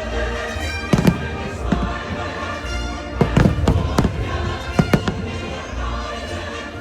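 Fireworks bursting with sharp bangs: a pair about a second in, a quick cluster around three to four seconds in, and another near five seconds. They sound over steady, loud show music.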